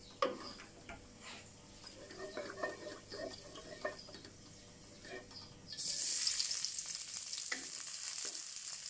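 Wooden spatula scraping and stirring a little oil in a wok. About six seconds in, chopped garlic goes into the hot oil and it breaks into a loud, steady sizzle, with the spatula still stirring.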